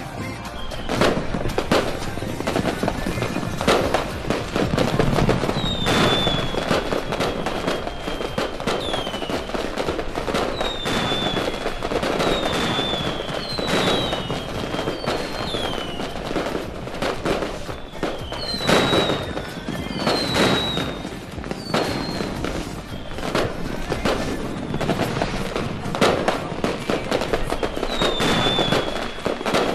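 Aerial fireworks display: frequent sharp bangs and crackling bursts over a continuous rumble, with repeated short high whistles that fall in pitch.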